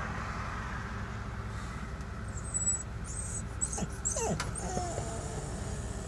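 Dog whining as it watches horses, a few short whines that slide up and down in pitch about four seconds in, over the steady low rumble of the truck's running engine.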